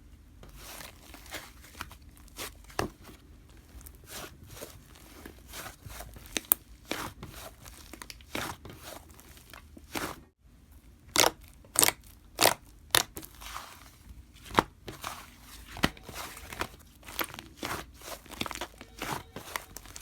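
Cotton candy slime being squished and stretched by hand, giving irregular sticky pops, clicks and crackles, with a brief break about halfway through.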